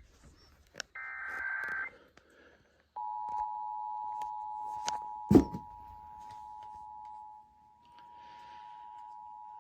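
Emergency Alert System required monthly test: the last burst of the SAME header's buzzing digital data tones ends, and about a second later the EAS two-tone attention signal (853 and 960 Hz) starts and holds steady. The tone dips briefly near the end and comes back. A single loud thump falls a little past the middle.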